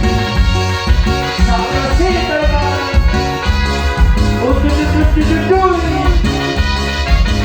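A dance band playing Latin American dance music: a steady, heavy bass beat under a melody line that slides up and down in pitch.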